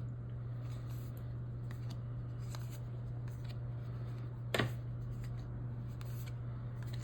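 Trading cards being handled and flipped through, giving faint scattered clicks and one sharper click about four and a half seconds in, over a steady low hum.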